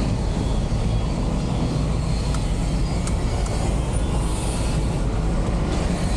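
Cargo truck's engine running steadily with road noise, heard from inside the cab while driving through town streets: an even, low rumble.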